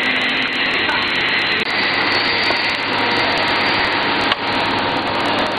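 Portable downpipe roll forming machine running: a steady mechanical whir and hiss from its motor and roller stations.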